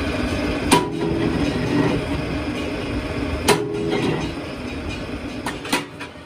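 Factory machinery running with a steady hum, broken by sharp metallic clanks of steel wheel rims knocked against and set down on the machines: one about a second in and one a few seconds later, each ringing briefly, then two quick clanks near the end.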